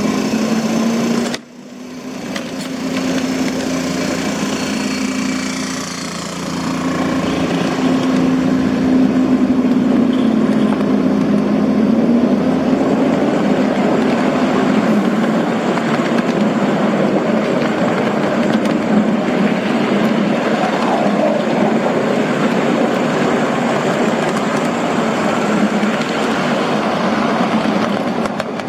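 Engine of a 1-inch scale Alco RS3 live diesel-electric locomotive running under way, a steady hum whose pitch wavers slightly up and down. The sound briefly drops out about a second and a half in.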